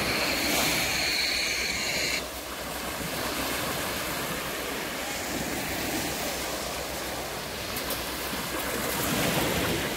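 Small waves washing and breaking along the shores of a narrow sand-and-shell spit, an even wash of surf. A high steady whine runs underneath and cuts off about two seconds in.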